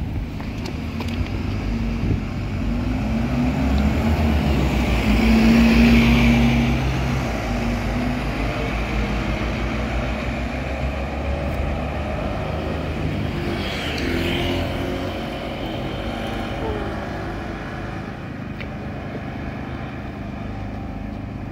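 Diesel double-decker bus engine running at the stop, swelling to its loudest about six seconds in, followed by steady street traffic.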